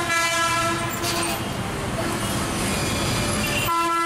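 Long, steady vehicle horn blasts held for seconds at a time over street noise, the pitch shifting as one horn gives way to another, with a brief drop near the end.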